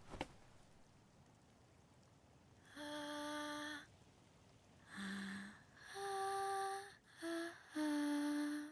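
A girl's voice humming a slow tune of five held notes, each sustained at a steady pitch with short pauses between them.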